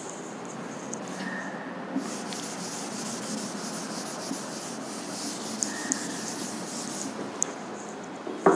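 A board duster erasing chalk from a blackboard: a steady scratchy wiping that starts about two seconds in and stops about a second before the end, followed by a sharp thump near the end.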